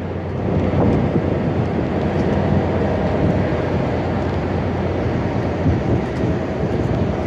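NJ Transit ALP-45DP dual-mode locomotive running on its diesel engines at close range, a steady low rumble.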